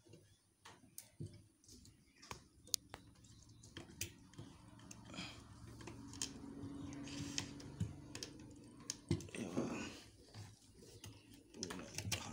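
Scattered clicks and rattles of wires and plastic connector plugs being handled and pulled from a CRT TV's circuit board. A low steady hum sets in about four seconds in and stops about nine seconds in.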